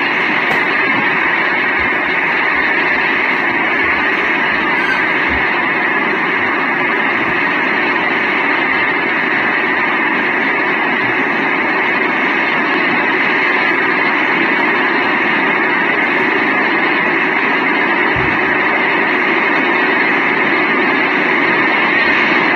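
Swollen brown floodwater rushing through rapids and over a drop, a steady loud rush of water.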